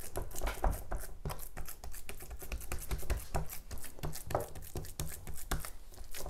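Hands patting and pressing raw minced-meat kebab mixture flat in an enamel tray: an irregular run of soft slaps and taps, several a second.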